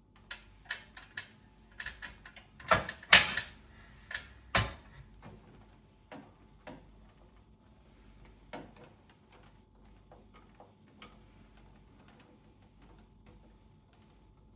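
Sharp clicks and knocks of plastic parts on an air conditioner's casing as its clips are released, a quick cluster in the first five seconds with the loudest knock about three seconds in, then only a few faint ticks.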